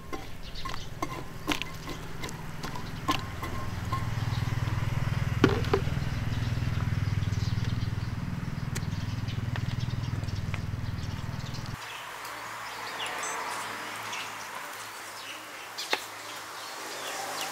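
A steel spatula scrapes and knocks against a large wok while stirring sliced bamboo shoots, over a steady low rumble. About twelve seconds in the rumble stops. Water is then poured from a plastic bottle onto grated coconut in a steel bowl, with a splashing hiss and a few light clinks.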